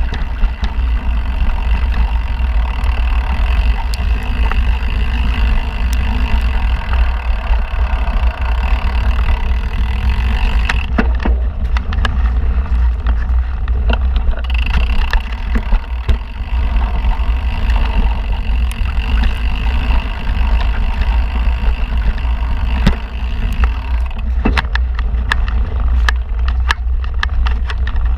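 Mountain bike descending a dirt singletrack, heard from a helmet-mounted camera. Wind buffets the microphone with a heavy low rumble, and the tyres run over dirt with scattered clicks and knocks from the bike. A steady high whine runs through and drops out twice for a few seconds.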